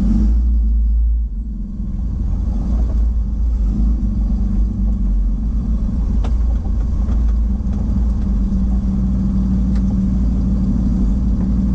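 Rollback tow truck's engine and road noise heard from inside the cab while driving: a steady low rumble with a droning hum.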